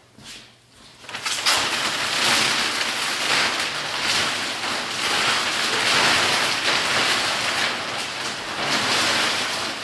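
Thin plastic shipping wrap being pulled off a crated snowmobile and bunched up by hand, crinkling and rustling continuously from about a second in.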